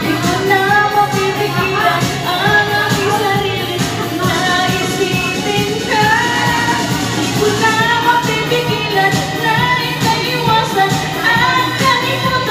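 Videoke singing: a woman sings into a microphone over a pop backing track with a steady beat.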